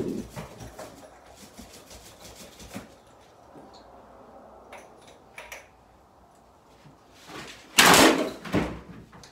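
Faint scrapes and small knocks from painting at a wall, then about eight seconds in a loud clatter and two thumps as a man slips and stumbles off a step stool, nearly falling.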